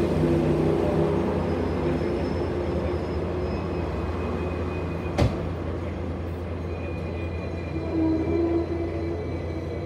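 Hong Kong double-decker tram running, heard from on board: a steady low hum and rumble of the motors and wheels on the rails, with one sharp clack about five seconds in.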